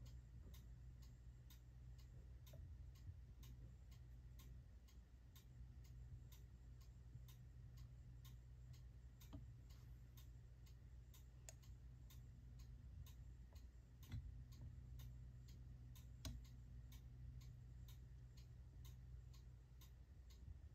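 Schneider weight-driven cuckoo clock ticking quietly and evenly, about two ticks a second, over a faint low hum.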